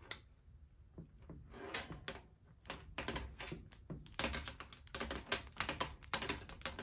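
Light, irregular clicking and tapping of a threaded air-hose fitting being handled and screwed into the outlet of a laser cutter's air-assist compressor.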